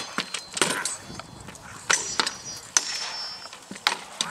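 Sharp knocks and clatters of a staged reenactment fight: weapon blows landing on wooden shields, about five strikes, some with a brief metallic ring.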